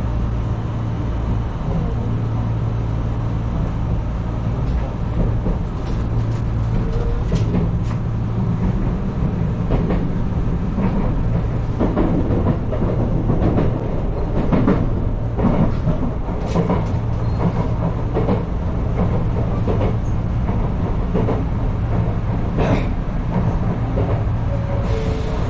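Enshu Railway electric train running on elevated track, heard from inside the front of the car: a steady low running hum with irregular clicks and knocks from the wheels on the rails.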